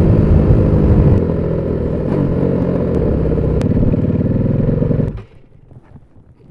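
Aprilia SXV550 V-twin supermoto engine dropping off throttle about a second in and settling into an idle with an even pulse, then cutting off suddenly near the end as it is shut down.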